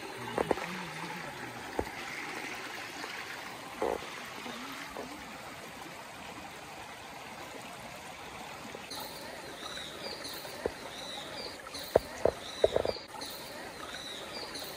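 Shallow rocky stream flowing over stones, a steady rush of water. From about nine seconds in, high chirps repeat about twice a second, and a few sharp clicks sound near the end, briefly louder than the water.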